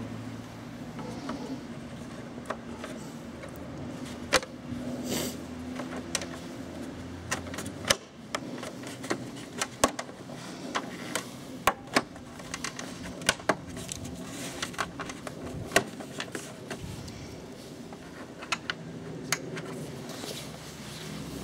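Irregular sharp clicks and light knocks of plastic dashboard trim and cables being handled and fitted on a Honda CBF125 motorcycle's cockpit, over a low steady background rumble.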